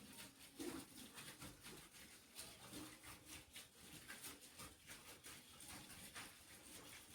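Near silence, with faint scattered soft ticks and rustles.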